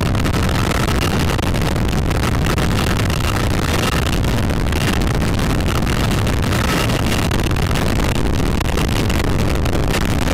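CH-53E Super Stallion heavy-lift helicopter's turbines and rotor running in a hover while lifting an external sling load, heard from inside the cabin: a loud, steady rumble with a faint whine over it.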